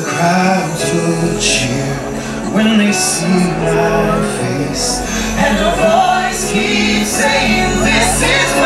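Fireworks show soundtrack: music with singing over sustained notes, and a deep bass note that comes in about two seconds in.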